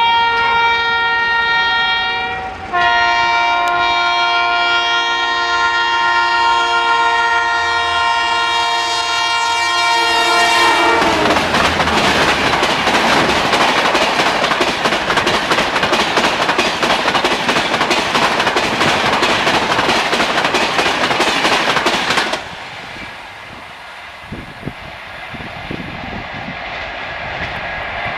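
WAP-4 electric locomotive's horn sounding continuously as the Rajdhani approaches and passes at about 135 km/h. The horn's pitch shifts lower about two and a half seconds in, and it stops about eleven seconds in. Then comes the loud rush and rapid wheel clatter of the coaches going by at speed, which cuts off abruptly, followed by a quieter, distant train horn near the end.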